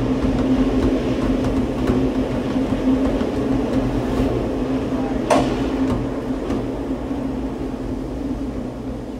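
Gateway Arch tram capsule running through its shaft: a steady mechanical rumble with a constant hum. There is a single sharp click about five seconds in.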